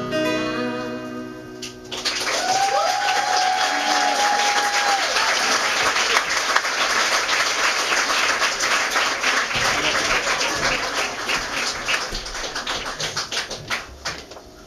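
A woman singing with acoustic guitar holds a final note that ends about two seconds in; the audience then claps and cheers, with one long whoop, and the applause fades near the end.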